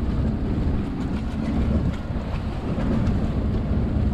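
Strong wind buffeting the microphone aboard a sailboat, a steady low rumble with a rushing hiss over it.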